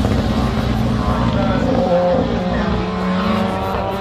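Rally car engine being driven hard along the stage. Its pitch rises and drops as it changes gear.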